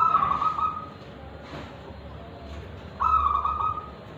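Zebra dove (perkutut) singing its cooing song, with the clear 'kristal' voice that fanciers prize: two short coo phrases, one at the start and another about three seconds in.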